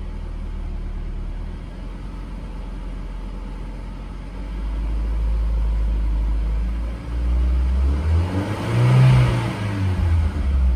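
Ford car engine idling, then revved up and back down about eight to ten seconds in, blipped on light throttle to bring out a rattle that traces to a vacuum hose not pushed fully on.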